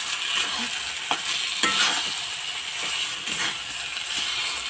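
Semolina and coconut frying in ghee in a metal kadhai, with a steady sizzle, while a spatula stirs and scrapes across the pan a few times.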